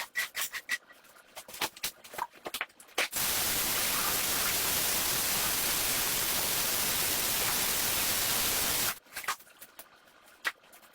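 Quick scrubbing strokes on a shag rug, then about three seconds in a loud, steady spray hiss that lasts about six seconds and cuts off suddenly, from a cleaning spray being applied to the rug.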